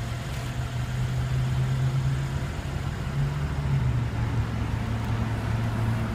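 A car engine idling, a steady low hum that shifts slightly in pitch about halfway through.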